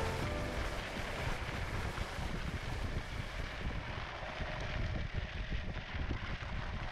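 Electric skateboard on 120 mm Cloudwheels rolling over a dirt and gravel track: a steady rough rumble and crunch from the wheels, with wind buffeting the microphone.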